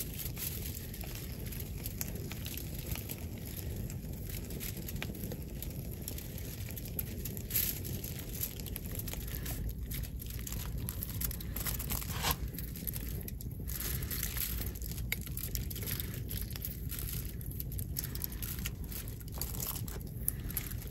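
Aluminium foil crinkling and rustling in irregular short crackles as a raw whole chicken is handled and cut on it, over a steady low rumble.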